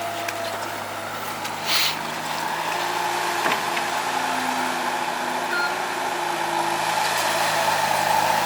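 ASV RT-60 tracked skid steer's diesel engine running steadily while it works, slowly getting louder, with a short hiss about two seconds in.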